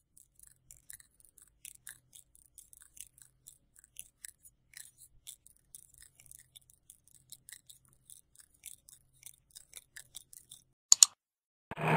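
Faint, irregular ticking and clicking, several ticks a second. Near the end comes a sharp, loud double click like a computer mouse click, and right after it a loud scraping noise begins.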